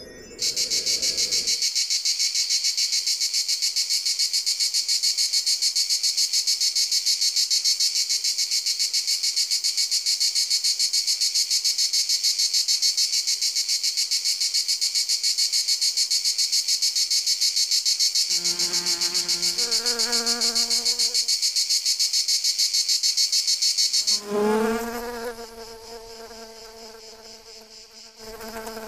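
Cricket trilling: a loud, continuous high-pitched trill of rapid pulses that cuts off suddenly about 24 seconds in. Softer, lower sliding calls are heard briefly before that and after it stops.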